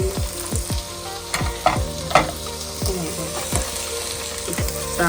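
Chicken and rice frying and sizzling in butter in a pot, stirred with a spoon, with a few sharper scrapes of the spoon against the pot around the middle.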